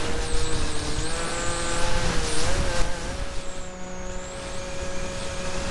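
Electric motor and propeller of an RC mini Cessna whining steadily, heard from the plane's onboard camera, with wind buffeting the microphone. The pitch dips and rises briefly about two and a half seconds in, then holds.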